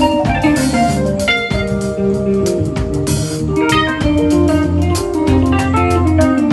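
A band playing through a sound check: drum kit hits over a sustained bass line and held melodic notes.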